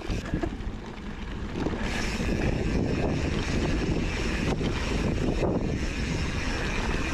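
Wind rushing over the microphone and the tyre and trail noise of a mountain bike being ridden on dirt singletrack. It gets louder about two seconds in, with two sharp knocks near the middle.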